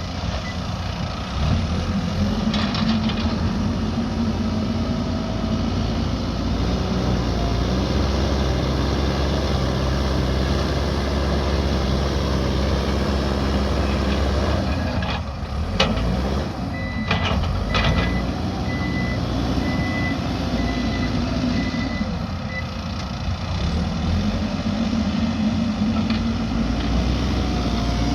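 Mahindra backhoe loader's diesel engine running steadily under load while it works dirt. Its reversing alarm beeps evenly for several seconds in the second half, and a few sharp metallic clanks come about three seconds in and again around the middle.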